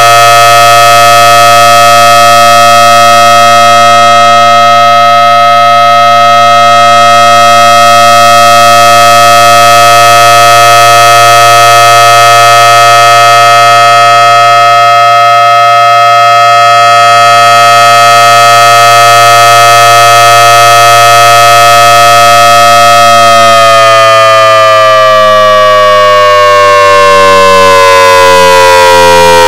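Synthesized Federal Signal Thunderbolt outdoor warning siren sounding its steady alert: a loud, steady multi-tone chord with slight slow swells. About three-quarters of the way in it begins winding down, its pitch falling steadily.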